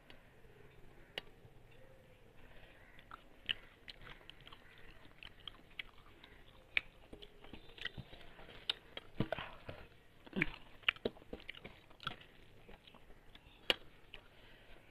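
Eating by hand: irregular short clicks and smacks of chewing, mixed with fingers working rice and prawn curry on a metal plate.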